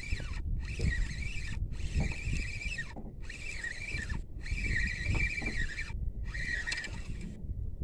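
Handling noise from a phone camera's microphone rubbing against a knit sweater, with a wavering high squeak that comes in stretches of about a second, cut by short gaps.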